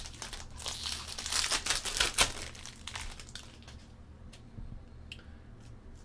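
Foil wrapper of a pack of baseball cards being torn open and crinkled: a dense crackle for about three seconds with two sharper rips near the middle, then a few faint clicks.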